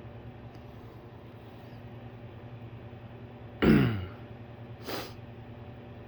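A man clears his throat once, a loud gruff sound falling in pitch about three and a half seconds in, followed a second later by a short puff of breath, over a steady low hum.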